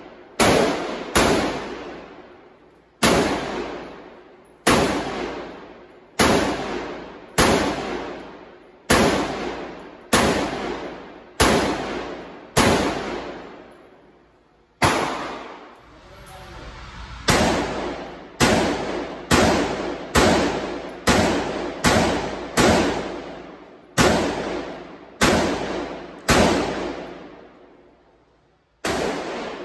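Sig Sauer M400 AR pistol firing single semi-automatic shots on an indoor range: about two dozen shots, mostly a second or two apart, coming faster in a run of shots a little past the middle. Each shot is followed by an echo dying away off the range walls.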